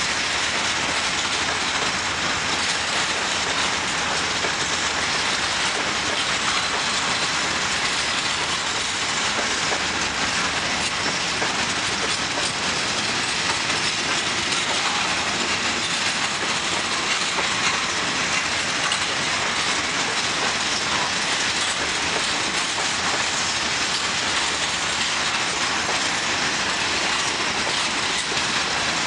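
A long train of open-top coal wagons rolling past at close range: the steady noise of wagon wheels running over the rails, unbroken throughout.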